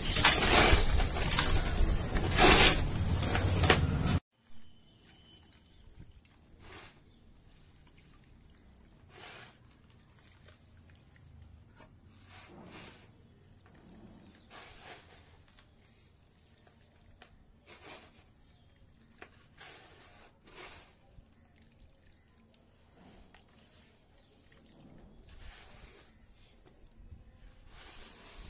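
Dry, dusty sand crumbled between fingers: a loud, dense grainy crackle for about four seconds, which cuts off suddenly. After that only faint, scattered crackles and pattering of grains falling into the dish.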